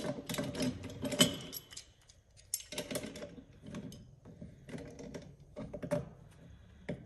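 Footprint grips tightening a brass compression nut on copper pipe: a run of irregular metal clicks and scrapes as the steel jaws bite and shift on the nut, the loudest about a second in.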